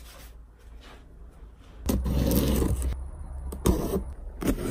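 Cardboard shipping box being cut open along its taped seam: about two seconds in, one loud scraping stretch of about a second as the tape is slit, then a few short sharp scratches.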